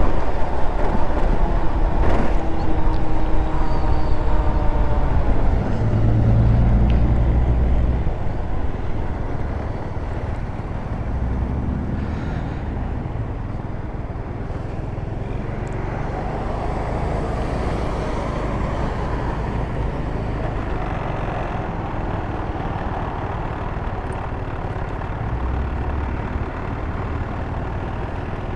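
GY6 scooter riding through city traffic, its engine and the road noise steady. A siren is fading away over the first few seconds.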